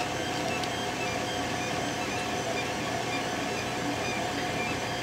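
Creality CR-10 3D printer running as it prints a PLA gear's infill: a steady whir with short, high motor whines that come and go as the print head moves.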